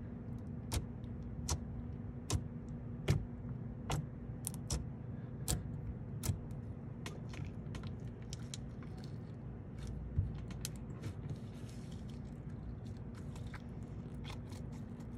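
Slime being squeezed and poked, making sharp clicks and pops about once a second at first, then quicker, softer crackling.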